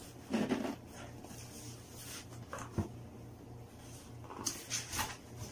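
A cardboard shoe box being handled: a scuff of cardboard about half a second in, a sharp tap a little before the middle, and a few quick scrapes near the end, over a steady low hum.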